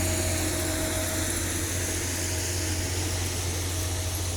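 Heavy track-repair machine's engine running steadily, a constant low hum with a couple of steady higher tones.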